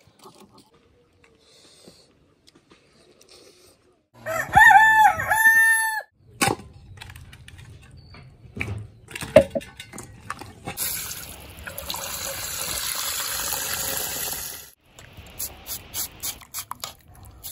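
A rooster crowing once, one loud crow of about two seconds and the loudest sound here. Later comes a steady hiss of about four seconds, then a run of quick sharp clicks as a knife works on a slab of raw pork skin.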